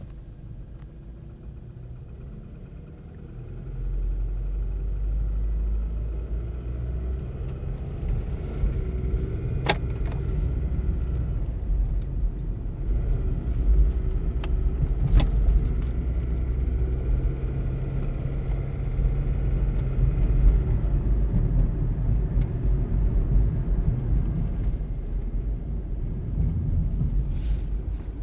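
2012 Nissan Versa driving and accelerating: a low rumble that gets louder about four seconds in, with faint whining tones that rise in pitch as it speeds up, and two sharp clicks partway through. This is the unexplained noise the car makes only under throttle, which stops as soon as the gas pedal is released.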